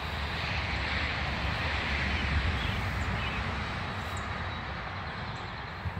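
Noise of a passing vehicle, swelling over the first two seconds or so and fading away, with an uneven low rumble underneath.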